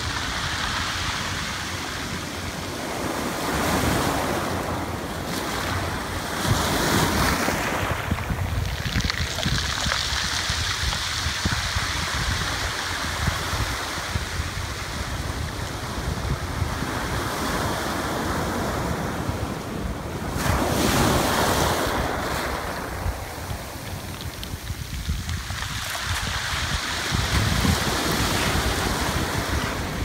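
Shore-break waves washing up a pebble-and-cobble beach and the backwash draining back over the rocks. The surges swell and fade every few seconds.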